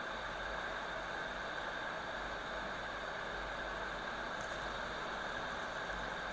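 Steady airy hiss of a workbench air blower, such as a hot air rework station, running without change, with a faint high crackle from about four seconds in.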